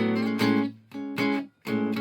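A.B. Manson "Merlin" acoustic string instrument played unamplified: chords strummed in a rhythm, about four strokes, with a brief gap just before the last one.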